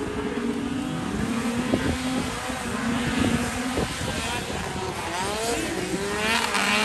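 Several two-stroke vintage racing snowmobile engines running, their pitch rising and falling as the sleds speed up and slow down, with more engine notes overlapping in the second half.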